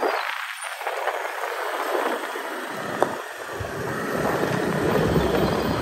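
Wind rushing over the microphone and road noise while riding a scooter in traffic. A deep buffeting rumble comes in about three and a half seconds in, and there is one sharp click near the three-second mark.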